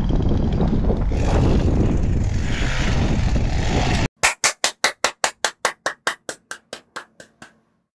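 Wind buffeting the microphone outdoors for about four seconds, then an abrupt cut to an end-card sound effect: a quick run of about sixteen sharp pulses, roughly four a second, each fainter than the last until it dies away.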